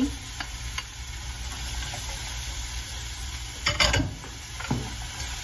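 Chopped onion, garlic, celery and carrots sizzling steadily as they sauté in olive oil in a soup pot, with a few knocks of a wooden spoon against the pot about four seconds in.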